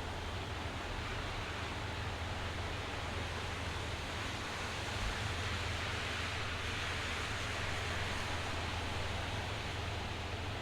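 Steady rain shower falling, an even hiss that grows a little heavier in the middle.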